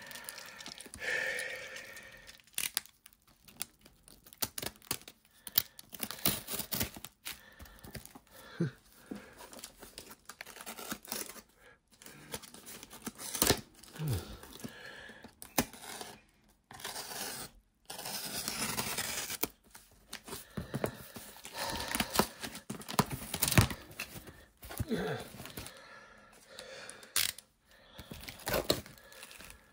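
Packaging torn open by hand: packing tape, a plastic bag and cardboard ripped and crinkled in short, irregular bursts with brief pauses between.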